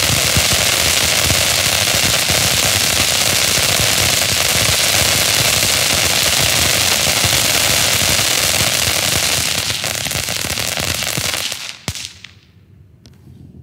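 Mini Waffle Cone firework fountains spraying, a steady hiss thick with rapid crackling pops. The spray dies away near the end, leaving a couple of last sharp cracks.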